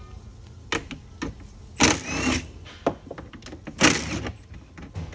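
Cordless ratchet running in two short bursts about two seconds apart, each with a rising whine, backing out the bolts of a plastic air filter housing cover. Short clicks and knocks of the tool and cover being handled come between the bursts.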